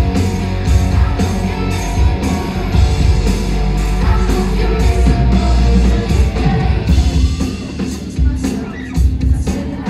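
Loud live band music: a woman singing lead into a microphone over electric guitar, heavy bass and a steady drum beat, as heard from the audience through the venue's PA.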